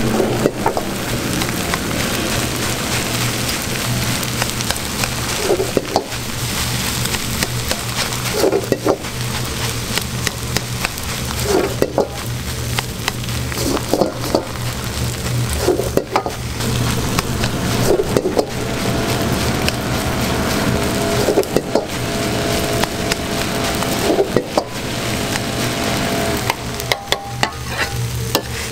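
Shrimp egg fried rice sizzling in a hot wok, with a steel ladle scraping and clanking against the wok every two to three seconds as the rice is tossed and turned.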